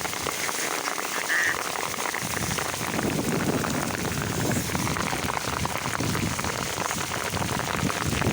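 Heavy rain falling, with drops drumming on a cardboard sheet held over the phone as a shield; the pattering gets denser and lower from about two seconds in. A brief high tone sounds once about a second and a half in.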